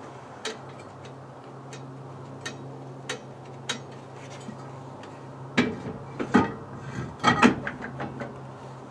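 Rear drum brake's adjusting screw being turned with a tool: sparse single clicks, then a louder clatter of metal clicks and knocks from about five and a half seconds in. The shoes are far out of adjustment and are being wound out a long way.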